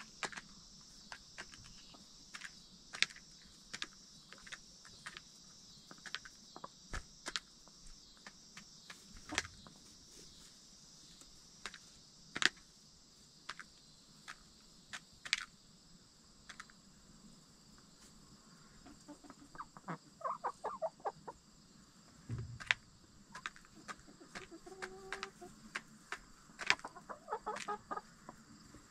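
Backyard hens feeding: frequent sharp, irregular taps of beaks pecking at feed, with short bursts of soft clucking around two-thirds of the way in and again near the end.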